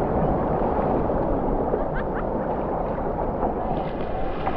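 Ocean surf washing steadily in the shallows, with wind buffeting the microphone.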